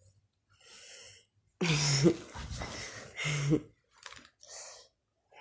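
A woman snoring in her sleep. A soft breath is followed by loud throaty snores with a low rattle, the loudest about two seconds in, then quieter breaths.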